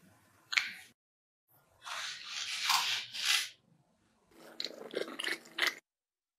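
Kitchen scissors snipping off the pinched-together top of mochi dough, a single sharp snip about half a second in, followed by two longer stretches of handling noise.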